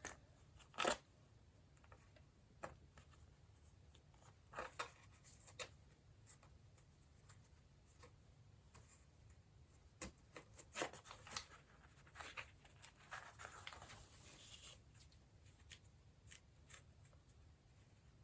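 Faint, scattered snips and clicks of scissors and craft materials being handled, with a short rustle of paper a little past the middle.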